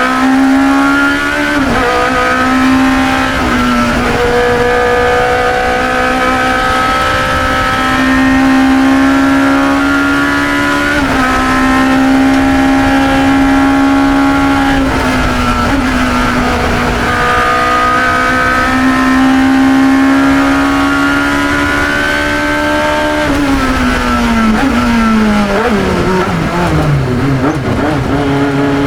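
1972 Chevron B21 2-litre sports racer's engine heard onboard, running hard at high revs, with brief pitch drops at gear changes a few times. Near the end the pitch falls over several seconds as the car slows and downshifts, then climbs again as it accelerates.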